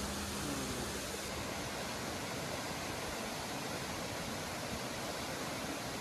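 A waterfall's water rushing steadily.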